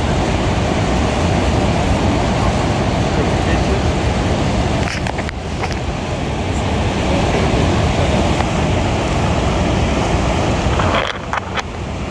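Loud, steady roar of Niagara's American Falls pouring onto the rocks and churning the river, heard from a boat below it with wind rushing on the microphone. The roar eases a little near the end.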